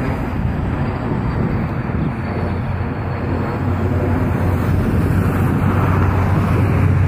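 Jet engines of a small business jet climbing away overhead: a steady rumbling roar that grows a little louder over the last few seconds.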